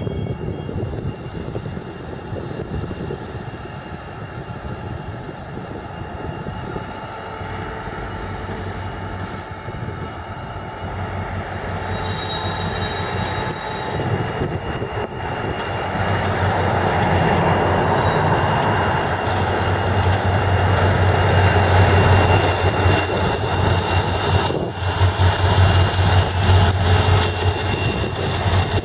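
Irish Rail 071 class diesel locomotive's EMD 12-645 two-stroke V12 engine running as it hauls a train of tank wagons slowly through the yard, its low drone growing louder from about halfway in as it draws close. High steady wheel squeal comes from the curved track, over the rumble of the wagons rolling on the rails.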